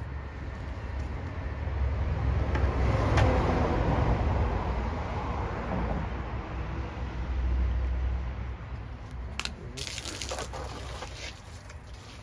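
Water pouring and splashing into a 60-litre plastic drum onto chicken manure, mixing a batch of liquid fertilizer. A rushing noise that swells to its loudest about three to four seconds in, with sharper splashes near the ten-second mark.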